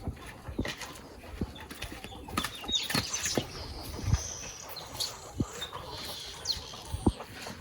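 Chickens calling and moving about, with scattered light knocks and taps.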